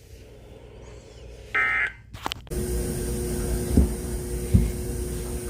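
Weather radio receiver between messages: a short burst of data tones about a second and a half in, a click, then a steady low hum with static and a faint steady tone, with two soft thumps.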